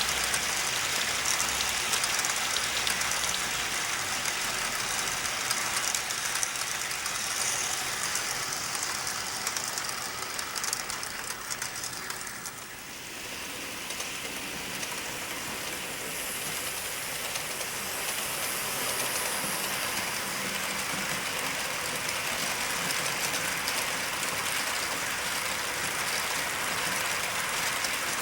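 Model train locomotive without an onboard sound system running along the layout track: the rolling clatter of its wheels on the rails is the only sound. The level dips briefly about halfway through, then evens out again.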